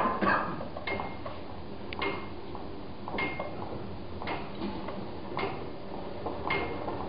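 Sewing machines played as percussion: short metallic clicks and clatters on an even beat of about one a second, several of them leaving a faint ringing tone.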